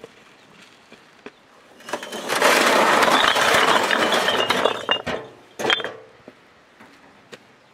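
A load of hollow red clay bricks tipped from a wheelbarrow onto dirt ground, clattering against one another for about three seconds, then a last couple of clinks as loose bricks settle.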